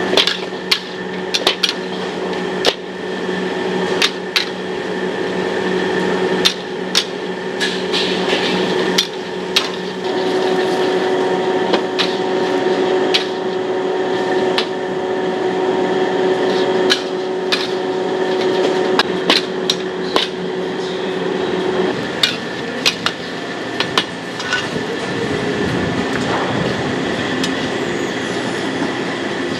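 Metal wok spatula striking and scraping a wok again and again at an irregular pace, over a steady hum.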